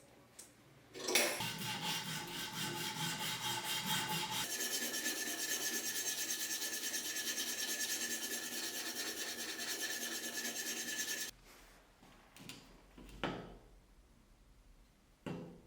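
An electric power tool working a surface, sanding or abrading, that starts suddenly, changes pitch about four seconds in, and stops suddenly after about ten seconds. A couple of short knocks follow near the end.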